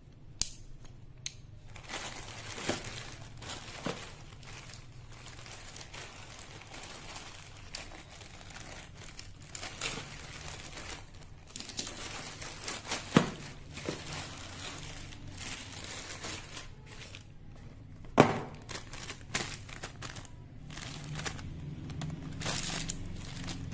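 Plastic courier mailer bag crinkling and rustling as hands open it and pull out the package inside. Scattered sharp clicks and knocks run through it, the two loudest about halfway and three-quarters of the way through.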